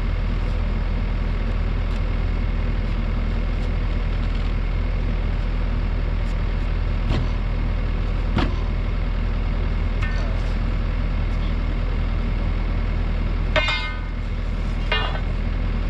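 Mini excavator engine idling steadily, with a few sharp metallic clanks and, near the end, a ringing strike of metal on metal, from work on the track and undercarriage during a track replacement.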